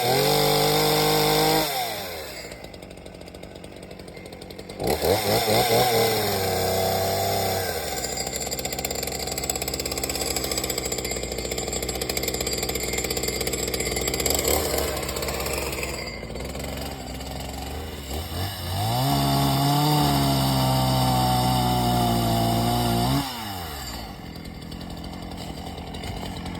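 Solo 642 two-stroke chainsaw on its first test run after a new piston, cylinder and carburettor diaphragm kit. It runs at high revs and drops to idle about two seconds in, then is revved up again. It runs steadily at part throttle for a while, is held at high revs for a few seconds, and falls back to idle near the end.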